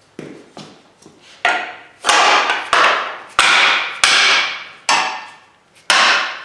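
Hammer blows on an aluminum ladder part, about eight sharp strikes each ringing and fading away, knocking a piece loose.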